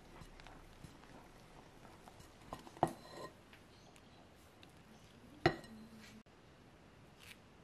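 Silicone spatula stirring thick batter in a glass mixing bowl: soft scraping and small clicks, with two sharp knocks of the spatula against the glass, about three seconds in and again about five and a half seconds in.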